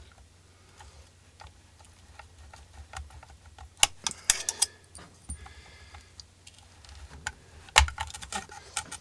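Irregular small clicks, taps and rattles of plastic and metal parts being handled and pried at while a GE ECM blower motor's stuck part is worked loose. The loudest clicks come about four seconds in and again near the end.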